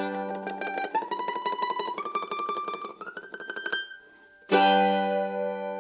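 Kentucky KM-120 Army-Navy flat-top mandolin (all-mahogany laminate body) played with tremolo picking, the melody climbing step by step, then a short pause and one strummed chord left ringing out.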